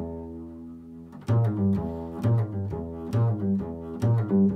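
Double bass played pizzicato: one plucked note rings and fades for about a second, then a steady line of plucked notes follows, about two a second.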